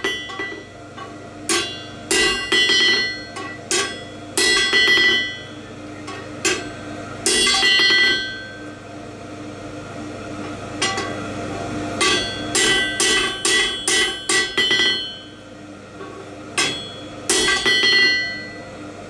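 Hand hammer forging a red-hot stainless steel bar on an anvil: runs of blows, each with a bright metallic ring, with a pause of about three seconds in the middle.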